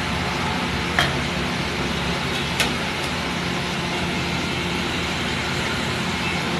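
Steady background noise of a busy street-food stall, with two sharp clinks of steel utensils, about one second and two and a half seconds in.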